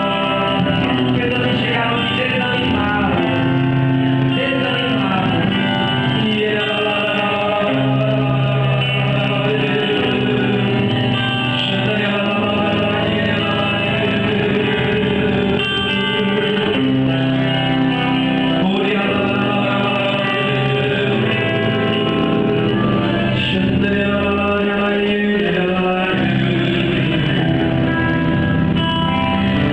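Live worship music: a man sings into a microphone over guitar accompaniment, loud and continuous.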